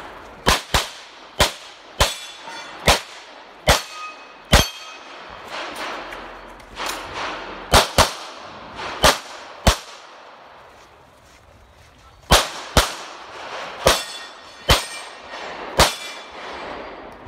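9mm CZ Shadow 2 pistol fired in three quick strings, about sixteen shots in all, with pauses of a few seconds between the strings. Several shots are followed by a brief metallic ring.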